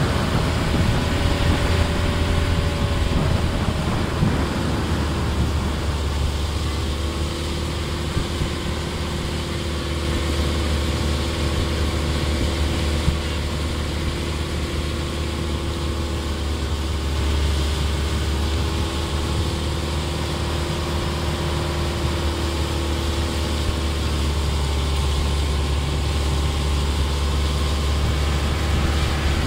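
Engine of a long wooden motorboat running steadily at speed, its pitch wavering only slightly.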